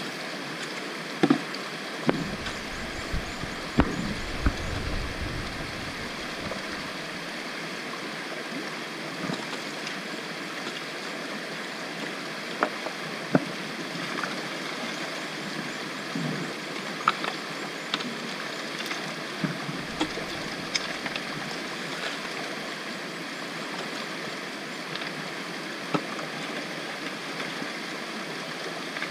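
Creek water running steadily over rocks, with splashes of water poured from a plastic bucket and scattered sharp knocks of the bucket and gravel.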